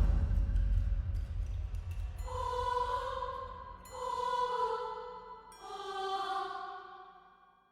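Horror sound effect: a deep low rumble dying away, then three eerie drawn-out pitched tones, each about a second and a half long, the last fading out to silence.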